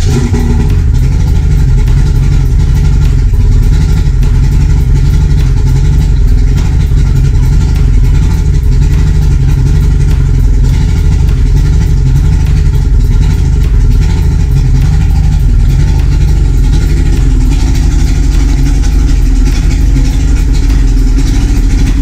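Yamaha HPDI 200 hp V6 two-stroke direct-injection outboard idling steadily in neutral, running on only four cylinders because cylinders 2 and 3 are not firing (no spark).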